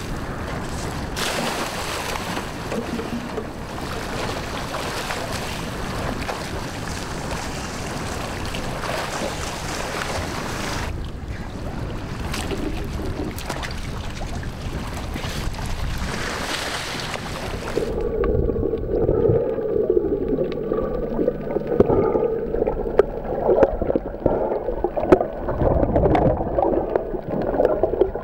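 Sea water and wind noise at the surface beside a small boat. About two-thirds of the way through it cuts to the muffled sound heard underwater: gurgling with scattered clicks and a faint wavering whine.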